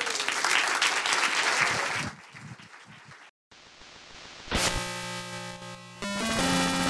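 Audience applauding for about two seconds, then fading out. After a brief silence, an electronic music sting of held synthesizer chords starts about four and a half seconds in and shifts to a new chord near the end.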